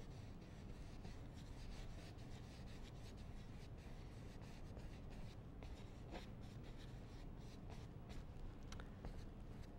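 Faint, scratchy strokes of a paintbrush working oil paint, a couple of them sharper about six and nine seconds in, over a low steady background hum.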